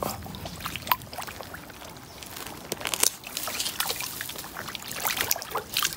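Water sloshing and trickling around a bamboo fishing pole being handled in the water, with scattered small splashes.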